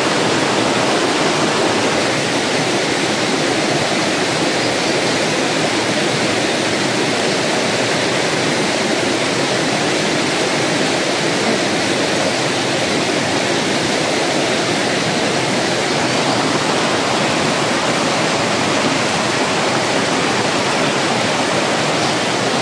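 Stream water rushing and splashing over rocks in a small cascade, a steady noise with no breaks.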